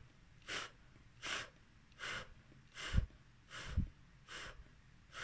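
A woman blowing short puffs of air through pursed lips, over and over at about one puff every three-quarters of a second, as if blowing out a candle. Two of the puffs, about three and four seconds in, hit the microphone with a low thump.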